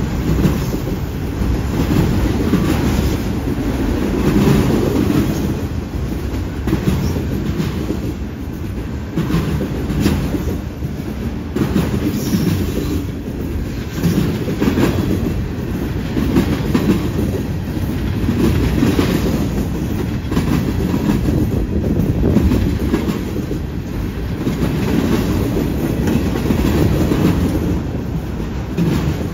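Freight train of autorack and centerbeam cars rolling past at close range: a steady rumble of steel wheels on rail, with repeated irregular clacks as the wheels pass over the track.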